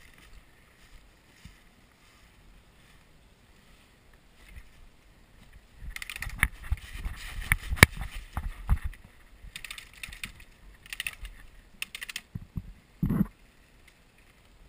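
Footsteps crunching and rustling through dry fallen leaves and loose boards, with clicks and knocks of handled gear, thickest from about six to nine seconds in. A short dull thump comes near the end.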